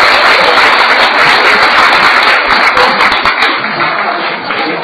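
Audience applauding, a dense continuous clapping that dies down near the end.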